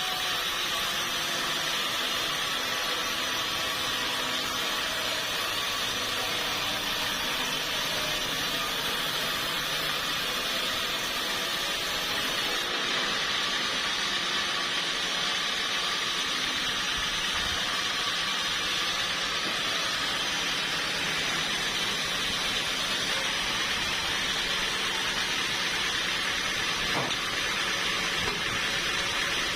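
Sawmill saw running steadily through teak wood, a continuous even mechanical noise with no pauses or changes in level.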